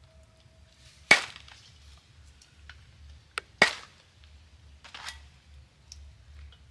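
A heavy knife chopping stingray meat into small pieces on a wooden log block: two sharp chops about two and a half seconds apart, with a few fainter knocks of the blade in between and after.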